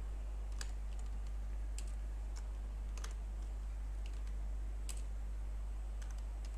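Computer keyboard being typed on: irregular, spaced-out key clicks over a steady low hum.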